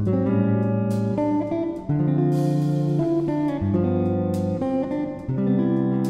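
Background music: a guitar playing a chord progression, the chords changing about once a second.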